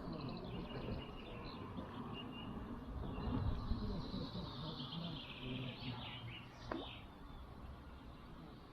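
Small birds chirping and twittering, with one quick upward sweep about two-thirds of the way through.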